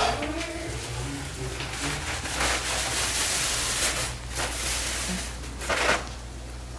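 White plastic takeout bags rustling and crinkling as they are handled. The crinkling is thickest in the middle, with a sharp rustle near the end.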